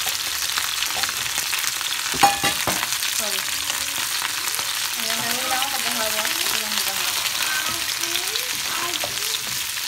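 Sliced mushrooms and chicken pieces sizzling as they fry in a nonstick pan, stirred with a wooden spatula. There is a single sharp knock about two seconds in.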